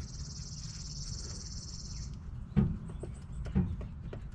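A high, even trill for about two seconds, then two sharp knocks of hand tools on the tie rod end's metal.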